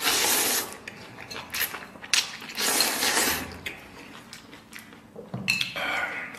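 A person slurping instant noodles off a plate twice, at the start and again about two and a half seconds in, then chewing with small wet mouth clicks. There is a short hum of the voice near the end.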